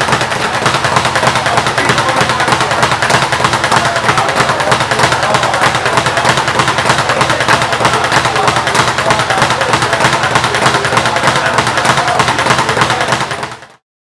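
Speed bag being punched rapidly on a First Rate Boxing speed bag platform: a loud, continuous rattle of the bag striking the rebound board, which stops abruptly near the end.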